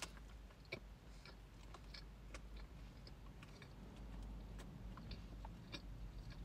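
Faint chewing of a mouthful of sandwich, with small scattered clicks of mouth noise, the clearest one right at the start.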